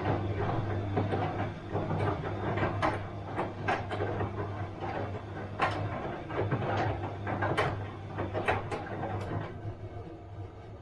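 Bosch washing machine running: a steady low hum with irregular clicks and knocks from the turning drum and its load. The knocking stops about nine and a half seconds in and the sound gets quieter.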